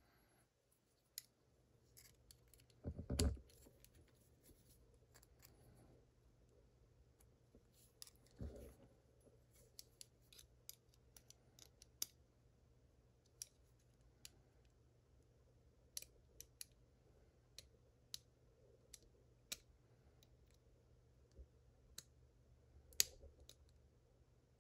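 Faint small metallic clicks and scrapes of tools working at the padlock's retaining clip, which is refusing to come off. There are two dull knocks, about three seconds and eight seconds in, and a sharper click near the end.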